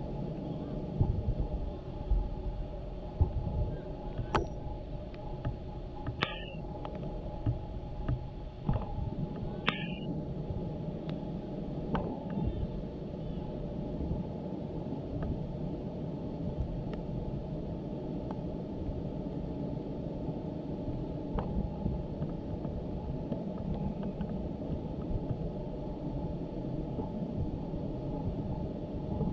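Steady low rumble on the microphone, with a few faint knocks and two brief high-pitched blips about six and ten seconds in.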